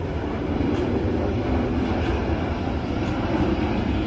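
Steady low rumble of a jet airliner's engines on final approach to land.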